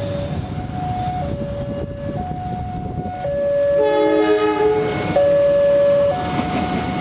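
Railway level-crossing alarm sounding two alternating electronic tones, a low and a higher note about a second each, over the low rumble of a passing train. About four seconds in, a locomotive horn sounds a multi-note chord for about a second.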